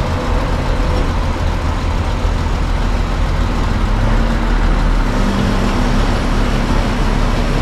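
Bus engine running with road noise, heard from inside the driver's cab as the bus moves slowly in heavy traffic: a steady low drone.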